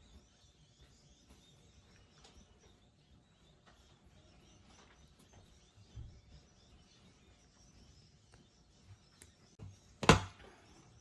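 Low background hiss with a few faint ticks, then one sharp knock about ten seconds in.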